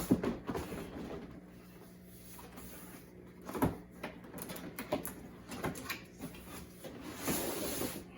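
Cardboard shipping box being handled and opened: scattered knocks, scrapes and rustles of cardboard, with a longer sliding scrape near the end.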